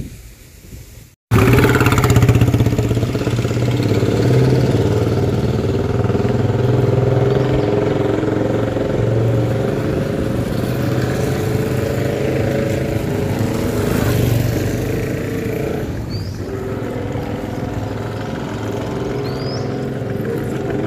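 Motorcycle engine running steadily at low speed, starting suddenly about a second in. A few short rising chirps sound near the end.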